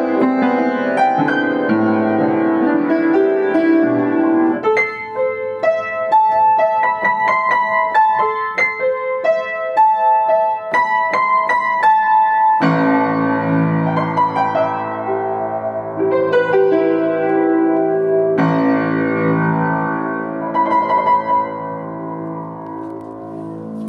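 Yamaha U1J upright piano being played: a lighter run of notes high on the keyboard, then fuller chords with low bass notes come in about halfway. It ends on a held chord that slowly dies away.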